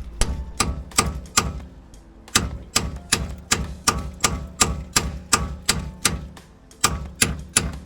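Steel hammer blows ringing on a rusted, seized bolt at a car's rear wheel hub, struck to break its head off. The blows come in quick runs of about two to three a second, with two short pauses.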